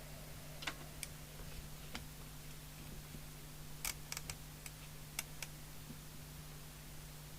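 Faint, irregular light clicks and taps, a handful over a few seconds, as of small parts of a CB radio being handled on a workbench, over a steady low hum.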